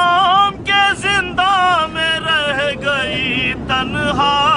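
A man chanting an Urdu salam (elegy), holding long melodic notes that bend up and down with short breaks for breath. The steady rumble of an airliner cabin runs underneath.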